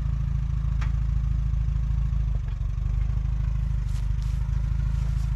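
Tractor engine running steadily at throttle with a fast, even low pulse, with a few faint clicks over it.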